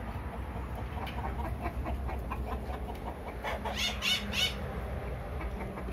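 Chickens clucking in a steady run of short repeated calls, with a few louder, higher calls about three and a half to four and a half seconds in.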